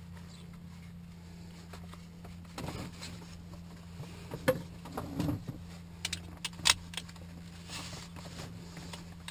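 Handling noise in a small aircraft cockpit: a few sharp clicks and knocks with rustling, as of straps, buckles or gear being handled, over a steady low hum.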